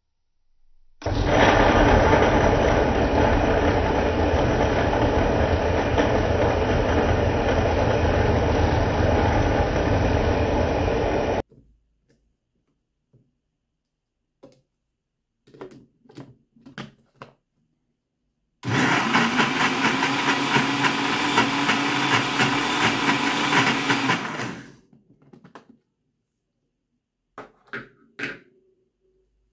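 Electric countertop blender running and crushing small soft gel balls, for about ten seconds and then again for about six, each run cutting off suddenly. Short clicks and knocks of the plastic jar and lid being handled come in the quiet gaps between and after the runs.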